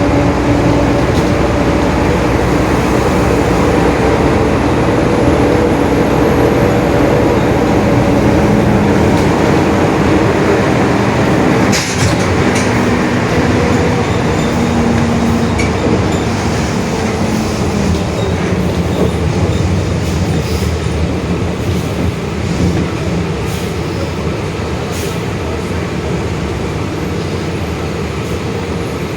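Mercedes-Benz OF-1721 city bus under way: the diesel engine and drivetrain run with a steady rumble and a droning growl from the rear differential that shifts in pitch with speed. There is a single sharp click about twelve seconds in, and the sound eases off slightly near the end.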